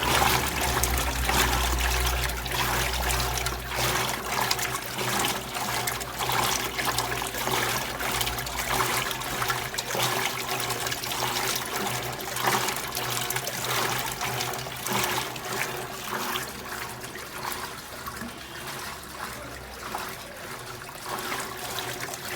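Electrolux LT12F 12 kg top-loading washing machine filling its drum, water rushing and trickling in steadily over a low, steady hum.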